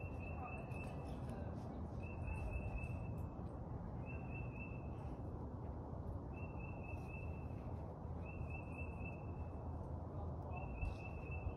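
A bird calling: a short high note, held level, repeated about every two seconds, six times in all. Under it is a steady low background rumble.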